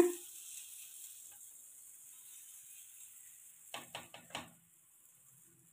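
Fingers patting and pressing adai batter flat on a heated cast-iron tawa: a quick run of about five soft taps near the middle, over a faint hiss.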